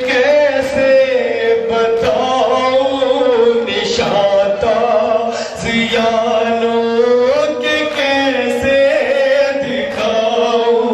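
Men chanting a noha, a Shia mourning lament, in a slow, drawn-out melody with long held notes.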